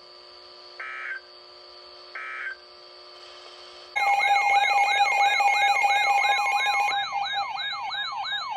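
Emergency Alert System end-of-message data bursts: two short, harsh buzzes about 1.4 s apart over a faint steady hum. About four seconds in, a much louder electronic alert alarm starts, a siren-like warble of fast falling sweeps, about three a second, with a steady tone joining near the end.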